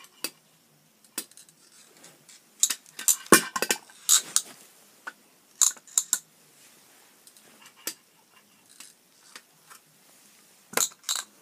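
Sharp plastic clicks and clacks from a toy grabber claw snapping and small plastic toy trash bins being handled. The clicks come singly, then in a quick flurry a few seconds in, and as a pair near the end.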